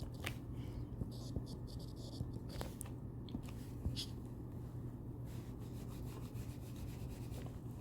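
Faint, scratchy strokes of a pen or marker writing, in short irregular bursts, over a steady low electrical hum.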